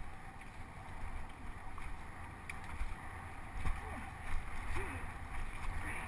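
Wind rumbling on the microphone and tyres rolling over a dirt trail during a fast mountain-bike descent, with a few sharp clicks and knocks from the bike over bumps.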